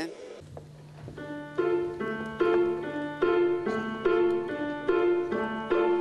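Piano music: a run of evenly spaced struck notes, about two to three a second, starting about a second in over a steady low hum.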